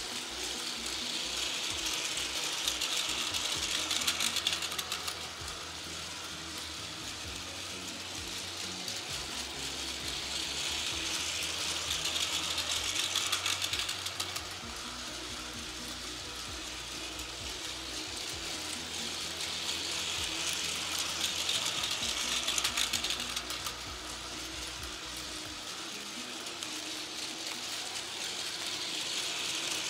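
Plarail Train Suite Shiki-shima toy train running laps on plastic track, its small battery motor and plastic gears whirring with the wheels clattering over the track. The whir swells and fades about every nine seconds as the train passes close by and moves away.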